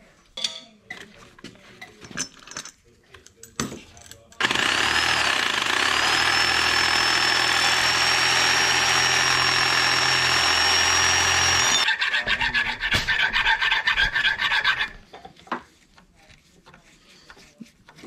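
A handheld corded electric cutting tool spins up with a rising whine and runs steadily for about seven seconds, cutting a steel hydraulic tube to length. It is followed by about three seconds of quick, rhythmic rasping strokes on the metal, with light knocks and handling of the tube before and after.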